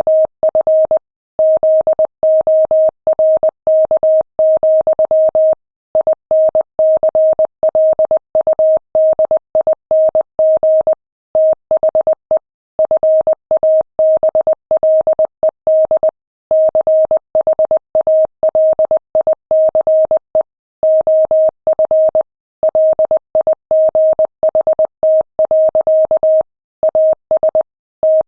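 Morse code sent at 20 words per minute: a single steady beep keyed on and off in quick dots and dashes, with short gaps between letters and longer pauses between words.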